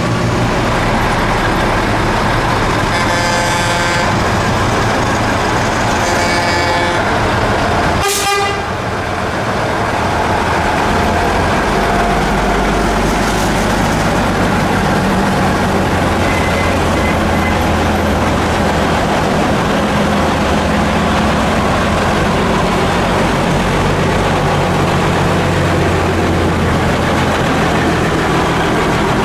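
Engines of a convoy of vintage heavy trucks running as they roll slowly past, with a steady low rumble. A horn toots twice, about three and six seconds in, each for about a second. There is a single sharp click about eight seconds in.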